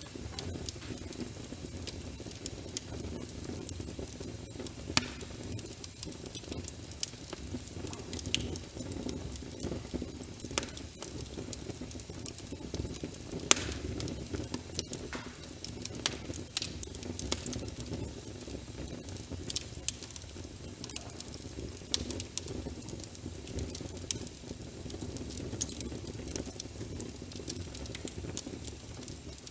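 Wood fire crackling in a fireplace, with irregular sharp pops and snaps, the loudest about five and thirteen seconds in, over a steady low rush of rain.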